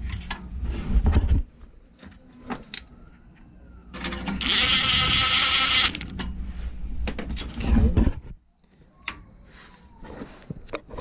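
Handling noise while a furnace flame sensor is refitted: heavy low thumps, scattered clicks, and a hiss-like rustle lasting about a second and a half, starting about four seconds in.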